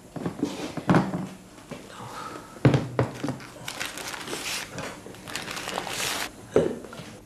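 A few separate knocks and thuds with bursts of rustling in between, in a small room.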